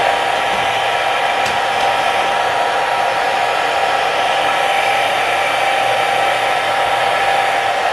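Handheld hair dryer blowing steadily at one speed, a loud even rush of air with a constant whine.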